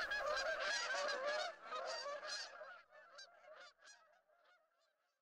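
A flock of geese honking, with many short calls overlapping. The calls fade out and stop about four seconds in.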